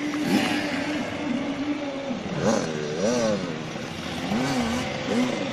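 85cc two-stroke motocross bikes racing by, their engines revving up and down over and over, the pitch swooping with each burst of throttle.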